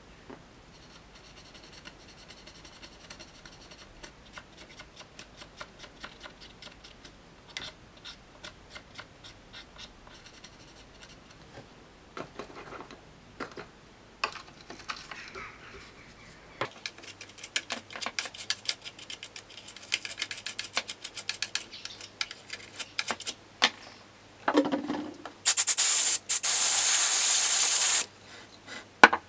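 Small scraping and rubbing on hard plastic and metal contacts, with a denser run of scratching past the middle. Near the end an aerosol can sprays: a short puff, then a steady hiss of about two and a half seconds, the loudest sound here.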